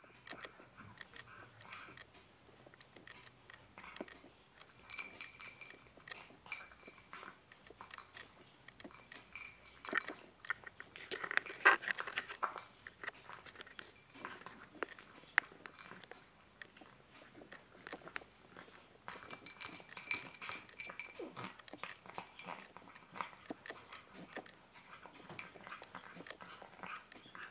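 A calico cat eating dry cat food from a bowl: steady crunching and chewing with small clicks, loudest for a couple of seconds around the middle. She is a cat with stomatitis, eating readily.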